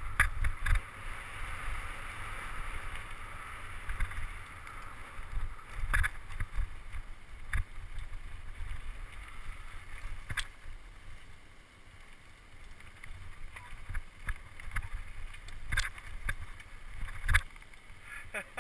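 Mountain bike rolling over a rough gravel and scree trail, heard through a handlebar-mounted camera: a steady rumble of tyres and wind on the microphone, with sharp knocks from bumps every couple of seconds.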